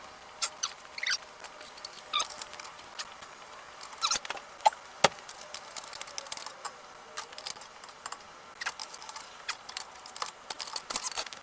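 Scattered metallic clicks and clinks of a 21 mm socket and long breaker bar at work breaking the wheel's lug nuts loose, with one sharper knock about five seconds in.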